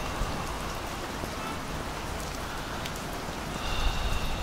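Steady rain falling, a constant even hiss, with a faint high tone coming in near the end.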